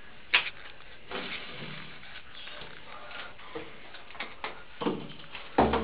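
A few sharp knocks and clatters of objects being handled, the loudest just after the start and another near the end, with brief faint vocal sounds in between.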